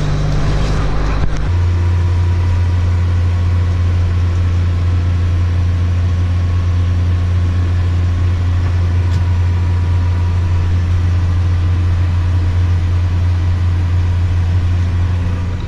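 Heavy farm diesel engine running steadily, a loud low drone that settles to a lower pitch about a second and a half in.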